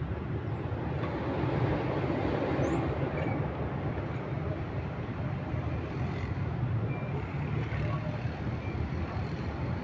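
Steady rumble of city road traffic, swelling as a vehicle passes about two seconds in.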